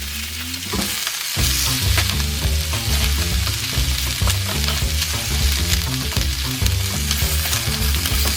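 Crackling and sizzling from a campfire, a steady hiss dotted with many small sharp pops.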